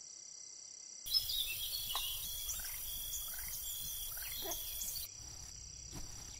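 Steady chirring of crickets, joined about a second in by birdsong of short falling chirps over a soft outdoor hiss. The birdsong and hiss cut off abruptly about a second before the end, leaving the crickets.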